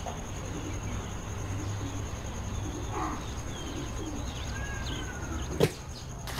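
Outdoor ambience with birds chirping and calling, including one short gliding whistle, over a low steady hum. A single sharp knock comes about five and a half seconds in.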